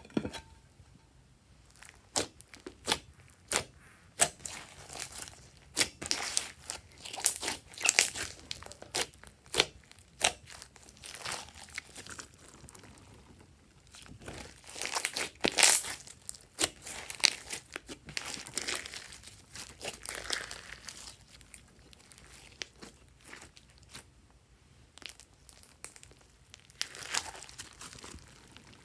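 Thick mixed slime studded with foam beads being stretched and pulled, giving irregular crackling clicks and squelches with short pauses between handfuls.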